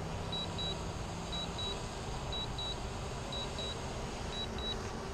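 Drone remote controller beeping while the drone makes an automatic return-to-home landing: pairs of short high beeps, about one pair a second, over steady background noise.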